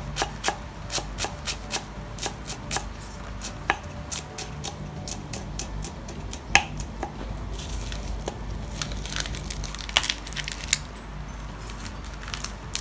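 Kitchen knife chopping fresh culantro and herbs on a thick round wooden chopping block: a quick, uneven run of knife strikes on the wood, with a few louder knocks.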